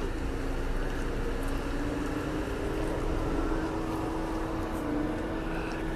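A steady mechanical hum, like a motor or engine running, whose pitch creeps up slightly over a few seconds, over a steady background noise.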